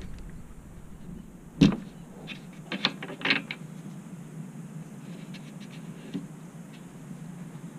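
Plastic drain plug of a new radiator being twisted out by hand: one sharp knock, then a quick run of plastic clicks and small knocks.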